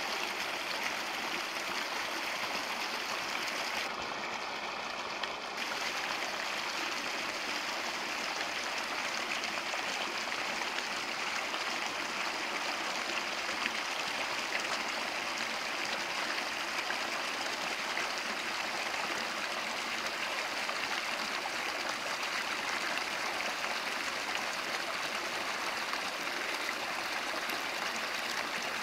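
Small forest brook running steadily, water splashing as it spills over rocks into a shallow pool.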